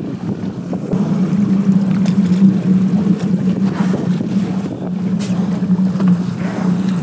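Boat engine running steadily with a low hum that grows louder about a second in, over wind and water noise.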